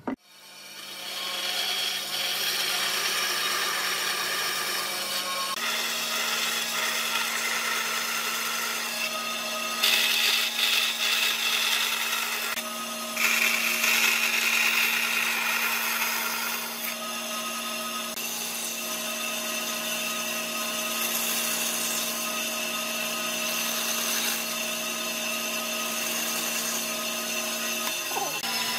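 Bandsaw running with a steady motor hum, its blade cutting through pine blocks, with two louder cutting stretches about ten and thirteen seconds in.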